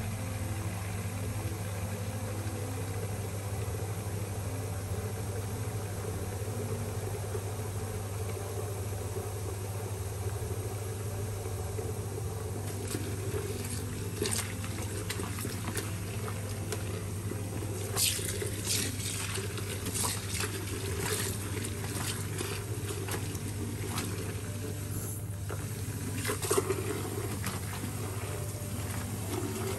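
Tap water running steadily into a ceramic sink basin filling with soapy water. From about halfway through come irregular splashes and squelches as wool sweaters are worked and squeezed by hand in the water.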